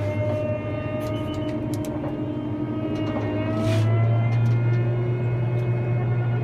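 Hagie STS12 self-propelled sprayer's diesel engine droning steadily while spraying, heard inside the cab. It gets louder a little past halfway, and one higher tone creeps slightly upward.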